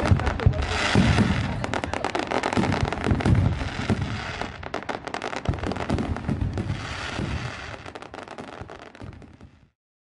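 Aerial fireworks display: a dense barrage of crackling and bursts, many sharp cracks close together over low booms. It thins and fades over the last couple of seconds, then stops abruptly near the end.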